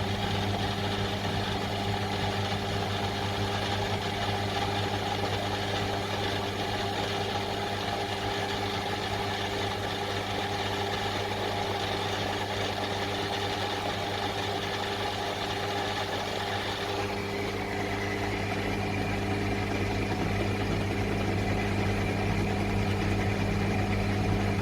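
Bench drill press's electric motor running steadily with a low hum, its tone changing slightly about two-thirds of the way through.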